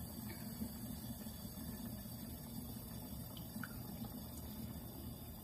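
Home espresso machine brewing, running with a steady low hum as coffee trickles into the cup.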